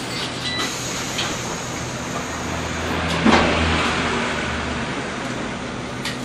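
Interior ride noise of a Skoda articulated electric trolleybus: a steady low hum and rumble, with a louder noisy surge about three seconds in.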